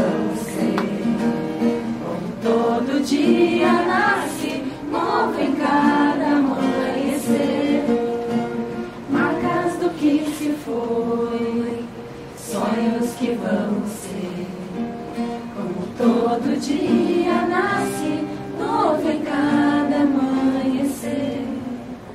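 Music: a song sung by a group of voices, with instrumental accompaniment.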